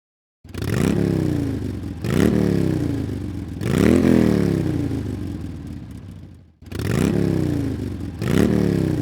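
Motorcycle engine revved in a series of throttle blips, each rising quickly in pitch and then falling away slowly. The run cuts off abruptly about six seconds in and the same blips start over.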